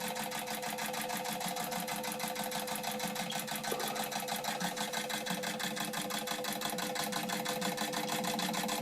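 Wilesco D455 toy steam engine running steadily, a fast, even mechanical clicking as it turns over on steam.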